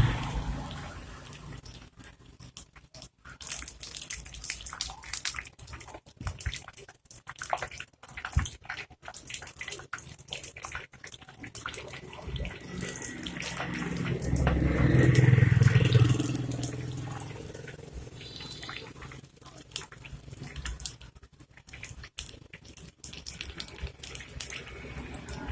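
Battered taro-and-pork pieces frying in hot oil on low heat, sizzling with many small pops and crackles. Around the middle a louder low rumble swells up and fades away.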